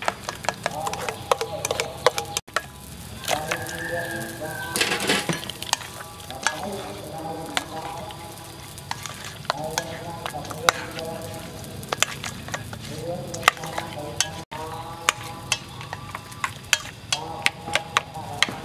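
A hand stirring and squishing thick batter in a stainless steel bowl, then working pork rib pieces through it: wet squelching with frequent small clicks against the metal bowl.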